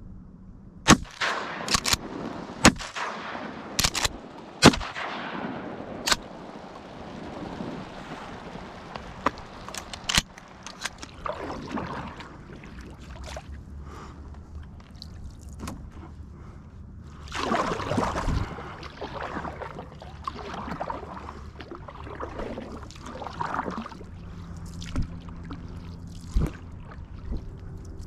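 Shotgun fired several times in quick succession in the first few seconds, each shot a sharp crack, with a rushing, splashing noise in the water after the shots. Then canoe paddle strokes swish and drip in the water.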